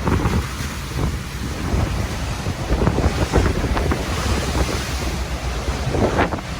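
Strong wind buffeting the microphone over a heavy, rough sea, with waves and water rushing in a loud, steady roar that surges now and then.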